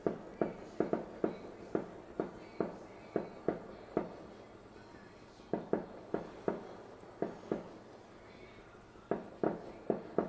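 Aerial fireworks bursting some way off: a quick string of sharp bangs, at times several a second, with two short lulls between volleys.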